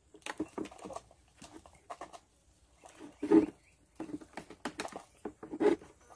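A duck feeding from a bowl: a run of short, irregular clicks and dabbling sounds, with one louder, lower sound a little after three seconds in.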